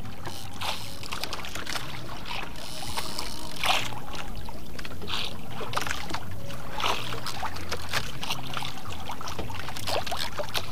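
Outrigger fishing boat at sea: a steady low engine hum, with frequent short splashes of water against the hull.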